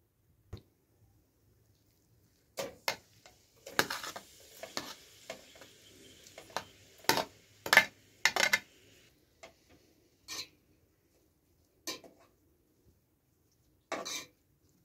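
Metal spoon clinking against a metal pot and a serving tray as chopped onions are scraped into the pot and stirred, with a sizzle of the onions hitting hot oil for a few seconds in the middle.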